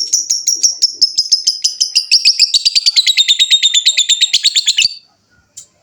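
Lovebird giving its long chattering trill (ngekek panjang): a fast run of sharp, high chirps that quickens around the middle. It stops suddenly about five seconds in, and one short chirp follows near the end.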